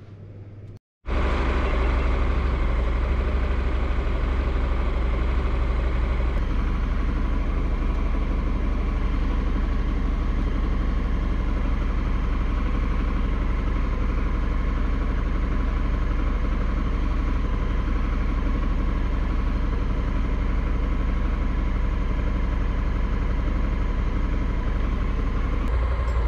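Honda Africa Twin's parallel-twin motorcycle engine running at a steady, unchanging speed. It cuts in abruptly about a second in.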